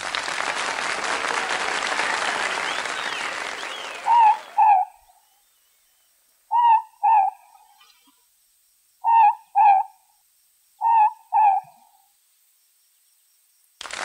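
Morepork (ruru) calling its two-note 'more-pork' hoot four times, each pair a couple of seconds apart. Before the first call, a steady hiss of noise fades out about four and a half seconds in.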